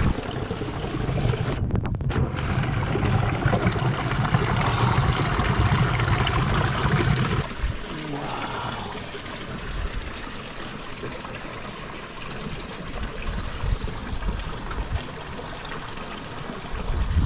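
Spring water trickling out from between sandstone boulders over pebbles, with a low rumble under it. About seven seconds in it cuts suddenly to a quieter, steadier trickle.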